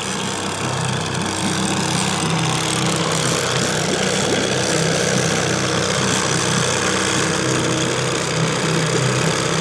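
Boat's outboard motor running steadily at slow trolling speed, an even low engine hum.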